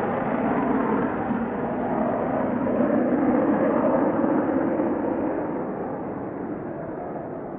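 Jet noise from a Mitsubishi F-2 fighter's single General Electric F110 turbofan as the aircraft goes by, a steady rush that fades over the last couple of seconds.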